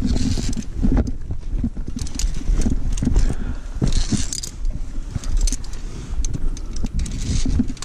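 Metal via ferrata carabiners clinking and scraping on the steel safety cable in short jingling bursts, several times, over a constant low rumble on a body-worn action camera's microphone.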